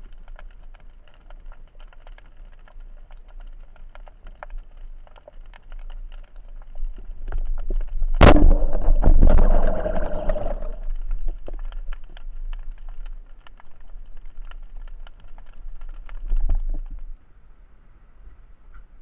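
Underwater sound with a steady crackle of faint clicks. About eight seconds in, a band-powered speargun fires with a sharp loud crack. It is followed by about two and a half seconds of loud rushing noise. The crackle stops near the end.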